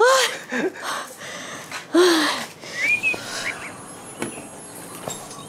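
Short wordless vocal cries that rise and fall in pitch, a lower groan about two seconds in, then a single rising bird chirp over quiet outdoor background.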